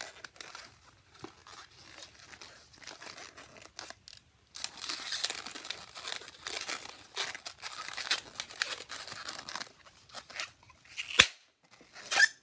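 Latex twisting balloons rubbing and creaking against the hands and each other as they are twisted and folded into shape. Near the end there is a single sharp snap, then a smaller one.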